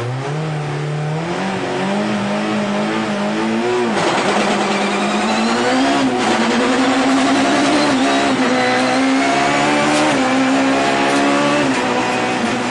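Peugeot 306 Maxi kit car's naturally aspirated 2-litre four-cylinder engine at full throttle, heard from inside the cockpit, accelerating hard through the gears: the engine note climbs and falls back at each upshift, about four times.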